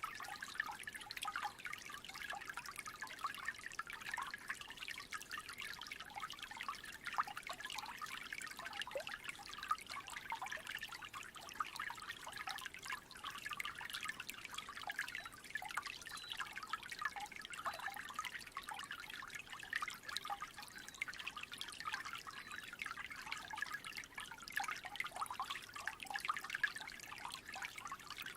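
Creek water trickling steadily, a constant dense patter of small splashes and gurgles.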